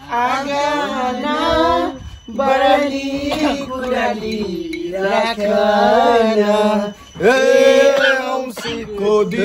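A group singing a Tihar bhailini song together in long chant-like phrases, with short breaks between phrases.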